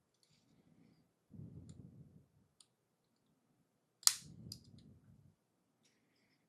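LEGO pieces handled close to the microphone, with soft rubbing and light ticks. One sharp snap-click about four seconds in, as a piece clicks into place.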